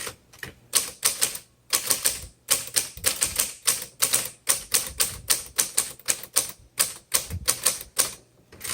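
Typing on a 1964 Olivetti-Underwood Lettera 32 manual portable typewriter: quick, crisp type-bar strikes in runs of several a second, with brief pauses between runs.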